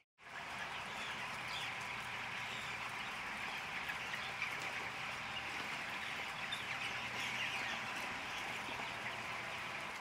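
A barn full of broiler chickens: a steady, dense chatter of many birds peeping and clucking together, over a faint low steady hum. It begins just after a moment's silence at the start.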